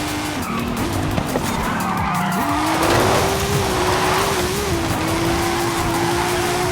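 Car engine running, its pitch dipping and then climbing back at about two and a half seconds and holding steady as it pulls, with a hiss of tyre noise around three seconds in.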